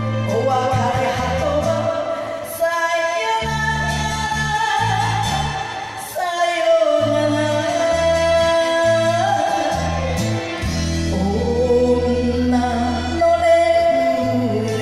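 A woman singing an enka ballad with vibrato through a microphone, over a karaoke backing track with a steady bass line.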